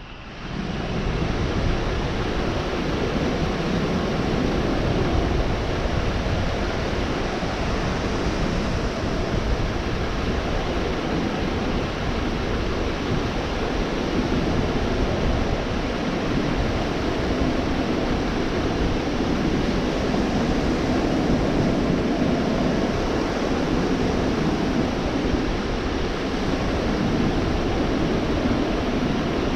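Gulf of Mexico surf washing onto a beach, a steady, unbroken rush of breaking waves that fades in over the first second.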